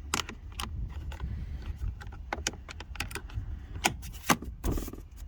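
Irregular sharp clicks and knocks of parts being handled and fitted by hand, over a steady low rumble.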